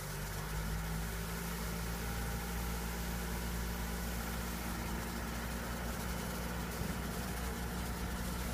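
Isuzu street sweeper truck running steadily at low speed, its diesel engine humming under a continuous hiss from the sweeping gear.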